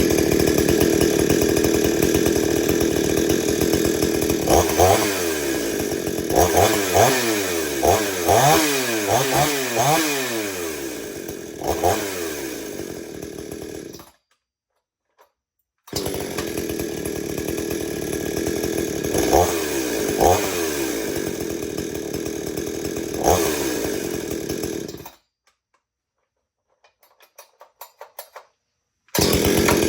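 XtremepowerUS gas chainsaw's two-stroke engine running, revved up and down several times in a row. The sound drops out to dead silence twice, once briefly near the middle and for a few seconds near the end, and each time resumes with the saw running.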